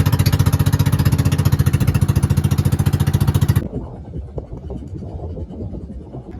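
A small engine running with a fast, even chugging beat, which cuts off abruptly about three and a half seconds in, leaving a quieter low rumble.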